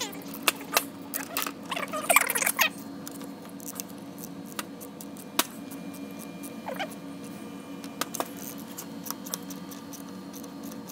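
A socket wrench turning a threaded metal bushing into the plastic intake manifold's fuel-rail mounting hole: scattered clicks and short squeaks, busiest about two seconds in, over a steady low hum.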